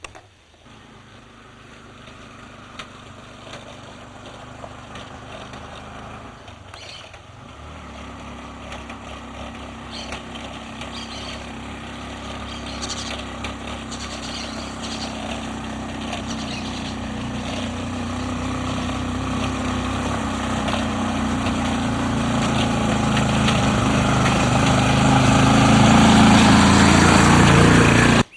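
A motor vehicle's engine running and drawing steadily nearer, growing louder throughout, until the sound cuts off suddenly at the end.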